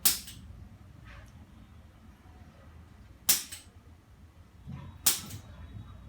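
Three sharp cracks during a chiropractic manipulation for neck tightness: one right at the start, one about three seconds in and one about five seconds in, each with a quick second snap just after it.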